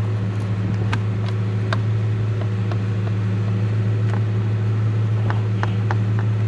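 A steady low hum, with scattered light clicks and taps of hand tools and parts in the engine bay.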